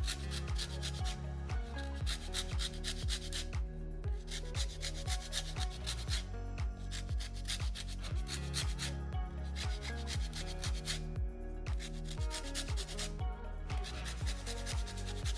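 Music with deep, sustained bass notes and a steady beat of about three to four pulses a second, overlaid with a dense scratchy, rubbing texture.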